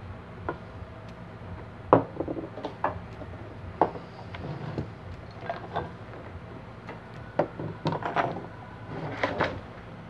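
Scattered clicks and knocks of an Arno Silence Force fan's motor parts, the stator and plastic housing, being handled and fitted together for reassembly. The sharpest knock comes about two seconds in, with a cluster of them near the end.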